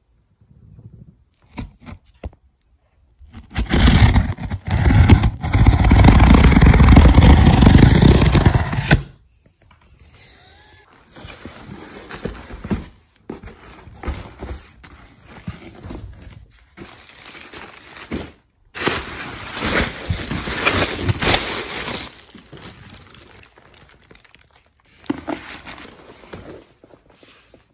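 Cardboard shipping box being opened and handled: a long, loud stretch of scraping and rustling from about four to nine seconds in, then intermittent softer crinkling of cardboard and bubble-wrap packing.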